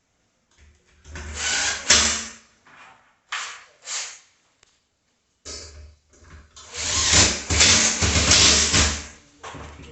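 Power drill running in bursts: a burst of about a second, two short blips, then one longer run of about four seconds.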